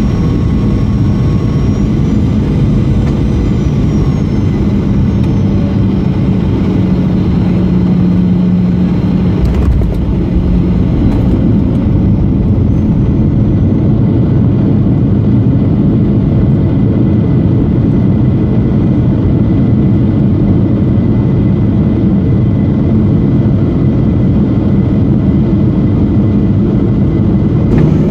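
Boeing 737-800's CFM56 jet engines and airflow heard loud and steady inside the passenger cabin, a deep rumble with an engine whine whose pitch glides down in the first few seconds.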